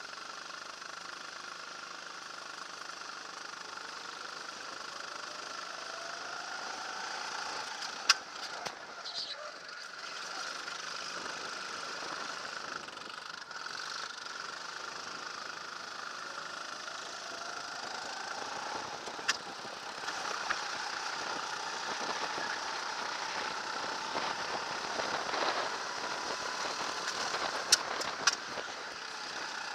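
The engine of an RT8 rental go-kart, heard onboard, picking up at the start and running hard, its pitch rising in long sweeps as it accelerates out of corners. A few sharp knocks cut through it.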